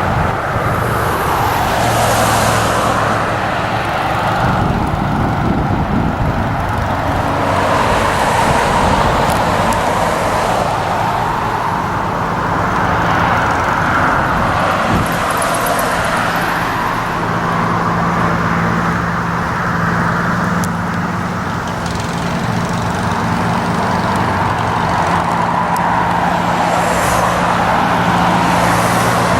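Steady drone of engines and road traffic: a low engine hum that grows stronger in the second half, under a hiss that swells and fades every few seconds.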